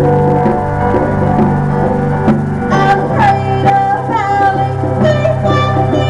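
Live band music: a singer sings over an electric guitar, with hand drums struck in a steady beat.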